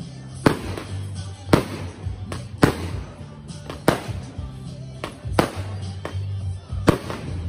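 Consumer fireworks cake firing aerial shots, a sharp bang roughly every second as the shells launch and burst.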